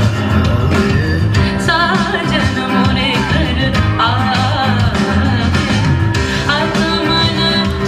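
Indian song playing for a dance performance: a singer's voice in long, ornamented phrases over steady instrumental accompaniment.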